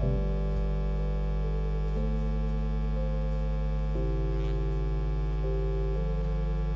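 Electronic keyboard playing slow sustained pad chords that change about every two seconds, over a steady low hum.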